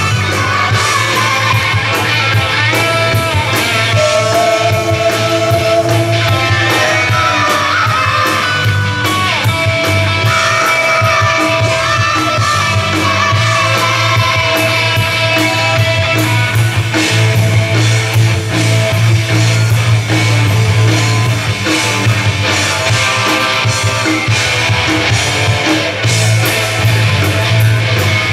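Live rock band playing a song on electric guitars, bass, drums and keyboard, with a steady beat.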